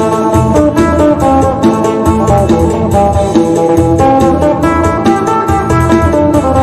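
Isan phin (three-string lute) plucked in a fast, busy lam sing melody of quick repeated notes, with a steady low bass underneath.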